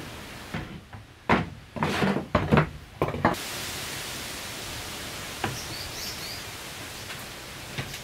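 A run of sharp knocks and thuds on a wooden plank door in the first few seconds, during work on the door and its hinges. Then a steady hiss, with a couple of soft taps and faint high chirps.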